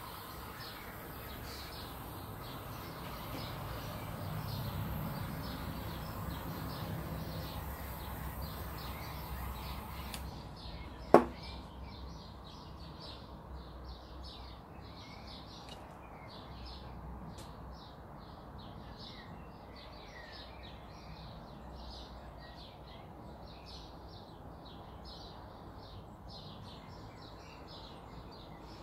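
Small hand-held butane torch hissing steadily for about ten seconds as it is passed over wet acrylic pour paint to bring up cells, then shut off. A second later comes one sharp knock, and birds chirp in the background throughout.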